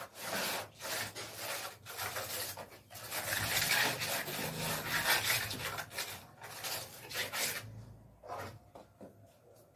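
Rough scraping and rubbing strokes on a hard surface, one after another with short breaks, dying away about three-quarters of the way through.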